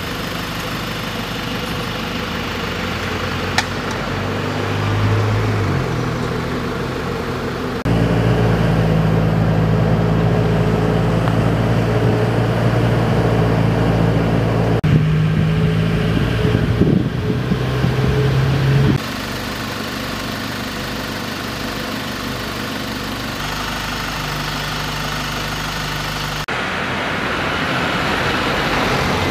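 Engine of an open-topped military utility vehicle running steadily with road and wind noise, heard from on board. The sound jumps abruptly in level and pitch several times between clips and is loudest in the middle stretch.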